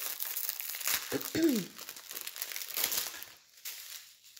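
Plastic packaging crinkling as strip bags of diamond-painting rhinestones are handled, with a short hum of a voice about a second in; the crinkling thins out near the end.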